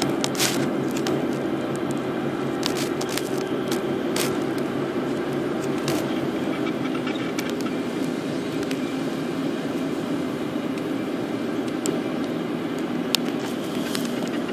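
A car driving on a winding road: steady engine and tyre noise heard from inside the cabin, with scattered light clicks.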